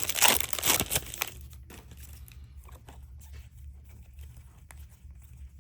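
Cellophane wrapper of a trading-card pack crinkling and tearing open for about the first second, then faint rustling and light clicks.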